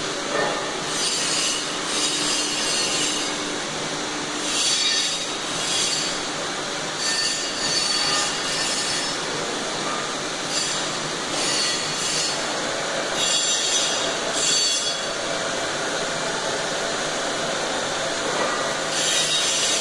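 Belt conveyor with an electric geared-motor drive running, carrying a sack along and up an inclined loader section. A steady mechanical running noise, with short high squeals coming and going every second or so.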